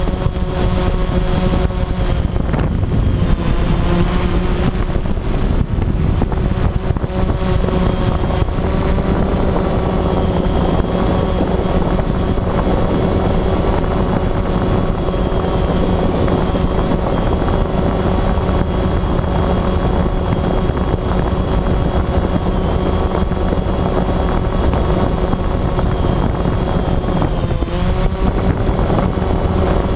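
DJI Phantom quadcopter's electric motors and propellers buzzing steadily in flight, heard close up from the camera on board, with several whining tones over a dense low hum. Near the end the whine dips in pitch and comes back up as the motors change speed.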